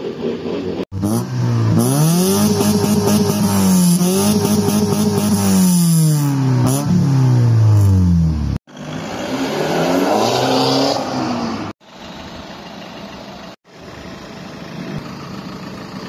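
Honda Accord engine being revved: the pitch climbs and is held high twice, then falls away. After a cut there is a shorter rev about ten seconds in, and a lower, steadier engine sound near the end.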